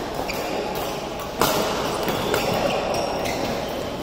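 Badminton racket striking a shuttlecock with a sharp crack about a second and a half in, over the echoing hum of a large sports hall, with a few short shoe squeaks on the court floor.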